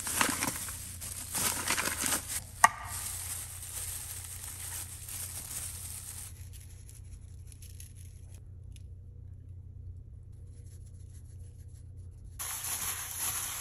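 Disposable plastic food-prep gloves and a plastic meat package crinkling and rustling as ground bison is squeezed out into a bowl, with one sharp click about two and a half seconds in. From about six seconds the rustling stops, leaving a low steady hum, until crinkling returns near the end.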